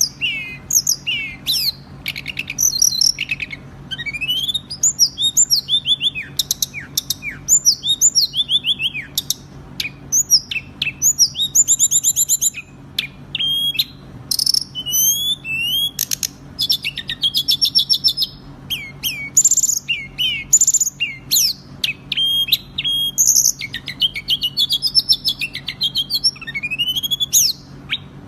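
Songbird song in a fast, dense, nonstop stream of varied chirps, quick trills and rising and falling whistles, the kind of 'speed rapat' masteran recording played to caged songbirds to teach them song. A faint low steady hum runs underneath.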